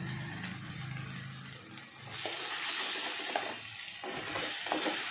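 Raw crab pieces sizzling in hot oil and onion-tomato masala in an earthenware clay pot as they are stirred with a spatula. The sizzle swells about two seconds in, with a few light knocks of the shells and spatula against the pot.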